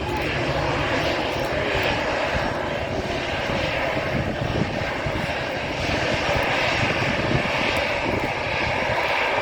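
Airliner jet engines: a loud, steady rushing noise as the aircraft passes, swelling slightly about six seconds in.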